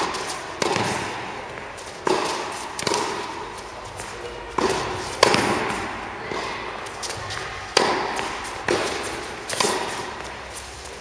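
Tennis rally: ball struck by rackets and bouncing on the court, a sharp pop every second or so, each trailing a long echo in an indoor tennis hall.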